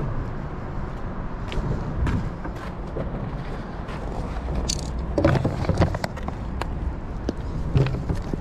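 Footsteps scuffing on bare rock and knocks of a bucket and camera being handled, over a steady low rumble; the knocks cluster about five to six seconds in and again near the end.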